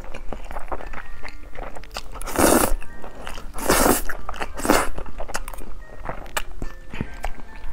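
A person slurping instant noodles through the lips, close-miked: three long slurps about two and a half, three and a half and four and a half seconds in, with wet mouth clicks of chewing between them.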